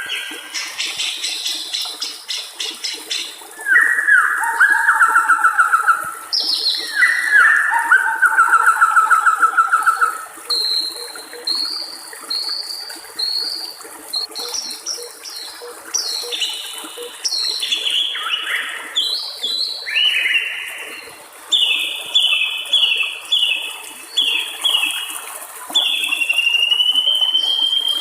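White-rumped shama singing a varied song: rapid repeated notes, two long fast trills in the first ten seconds, then a string of short whistled phrases ending in a long rising whistle. Beneath it runs a steady trickle of water.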